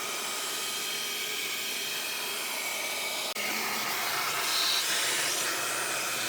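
Steady, loud rush of air from a cleaning tool working on the seat rails and carpet to clear out dirt, crumbs and small stones. The tone shifts a little past halfway through.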